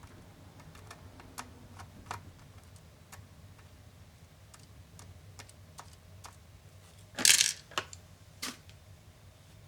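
Scattered light clicks and taps from hands and tools working on an Acer Swift SF315 laptop during disassembly. About seven seconds in comes a louder short clatter, followed by two smaller knocks.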